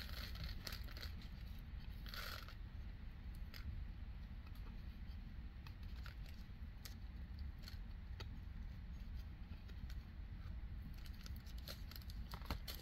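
Faint scattered clicks and rattles of loose resin diamond painting drills being handled in small plastic bags, over a steady low rumble.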